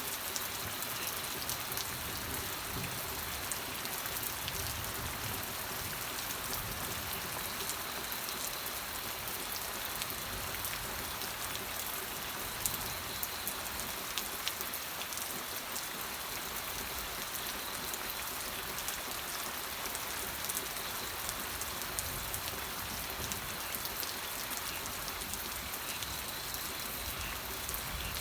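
Steady rain falling, a constant hiss with the fine patter of many drops landing on a surface.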